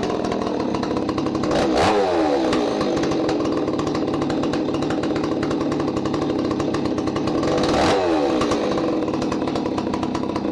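Stihl 026 two-stroke chainsaw engine, freshly rebuilt with a ported big-bore cylinder, running at idle through its first heat cycle, with two quick throttle blips about 2 seconds and 8 seconds in. It is running rich and needs leaning out.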